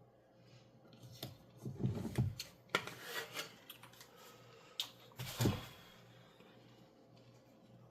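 Small plastic and metal parts and tools being handled on a workbench: a run of clicks, knocks and rustles, loudest about five and a half seconds in, over a faint steady electrical hum.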